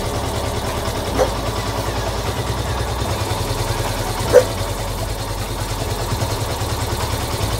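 Yamaha FZ motorcycle engine idling steadily with an even pulse. Two short sharp sounds cut in, about a second in and again, louder, a little past the middle.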